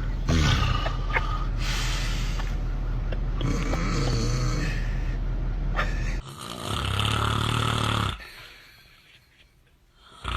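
A person snoring loudly. A long, rattling run of snores is followed by a short break, then one more snore of about a second and a half. A quiet pause of about two seconds comes next, and the next snore starts at the very end.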